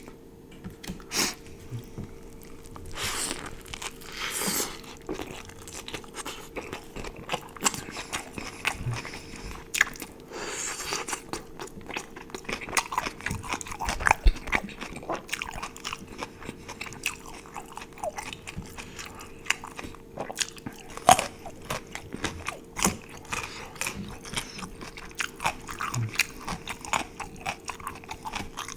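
Close-miked ASMR eating: a person biting and chewing food, with many sharp crunchy clicks throughout, over a faint steady hum.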